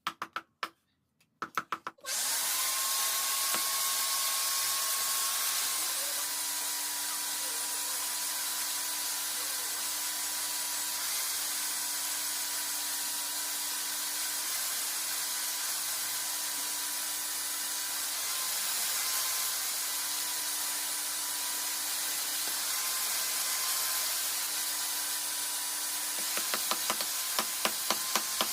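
Electric power tool motor starting about two seconds in and then running steadily, with a hissing whine whose pitch drops slightly a few seconds later. A few sharp clicks come before it starts, and a quick even run of clicks or taps comes near the end.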